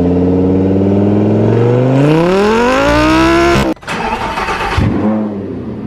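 Lamborghini Gallardo LP560-4's V10 engine running steadily, then revving and rising in pitch for about a second and a half before cutting off abruptly. A quieter stretch of car sound follows.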